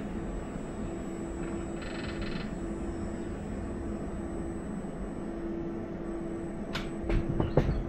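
Battery swap station machinery running with a steady hum, heard from inside the electric car sitting on the swap platform. There is a short rattle about two seconds in and a few clicks and knocks near the end.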